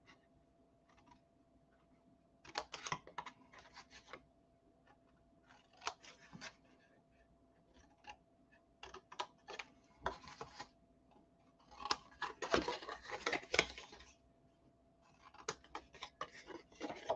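Small scissors snipping through cardstock, faint, in several short runs of quick cuts with pauses between.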